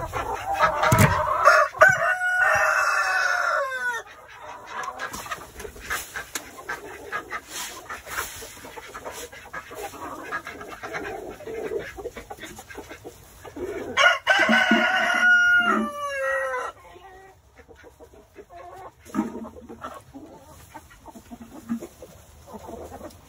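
Rooster crowing twice, each crow about two and a half seconds long and ending in a falling tail, amid a flock of hens clucking.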